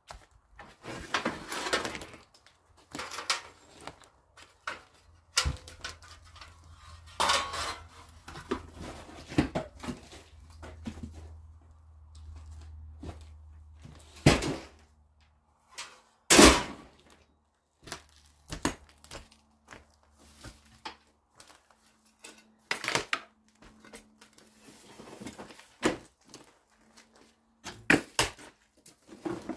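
Irregular knocks, clatter and rustling of debris and junk being handled, moved and dropped while a burnt-out building's interior is cleared out. Two sharp knocks about two seconds apart, near the middle, are the loudest.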